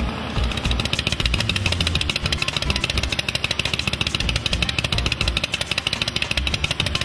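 Motorcycle engine running with a rapid, even train of firing pulses that sets in about half a second in.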